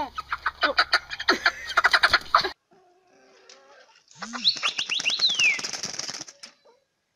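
Chickens clucking and squawking, cut off sharply about two and a half seconds in. About four seconds in comes a rapid flurry of chicken wings flapping, with a few high, falling cries, lasting about two seconds.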